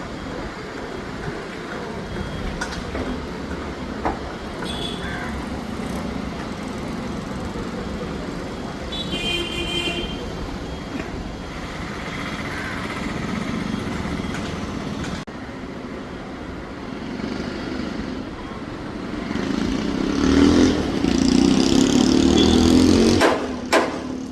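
Road traffic noise with a short horn toot about nine seconds in, growing louder near the end as a vehicle goes by.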